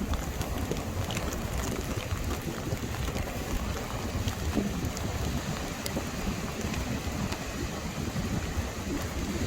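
Heavy rain with wind buffeting the microphone: a steady rushing hiss over a fluttering low rumble, with scattered faint ticks of raindrops.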